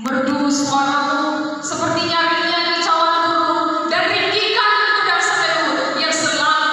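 A woman singing slow, long held notes.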